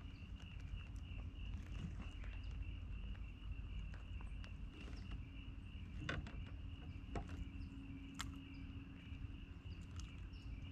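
Insects chirping steadily in a fast, even pulse over a low steady rumble, with a few faint clicks.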